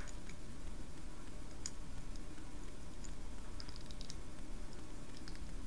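Scattered light clicks and taps of plastic toy parts and their packaging being handled, over a steady low hum.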